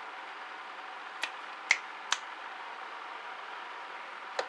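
Sharp little clicks from the disassembled mini angle grinder's plastic switch unit being handled: three about half a second apart, then one more near the end, over a steady background hiss.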